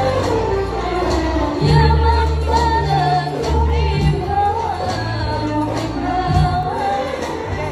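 Music with a singing voice over sustained low bass notes and light percussion.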